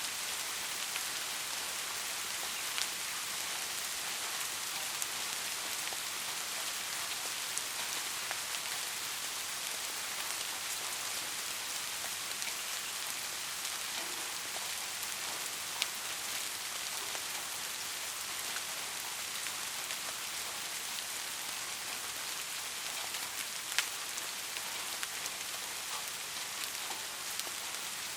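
Soft rain falling steadily: an even hiss of light rain with scattered individual drop ticks, a few of them louder.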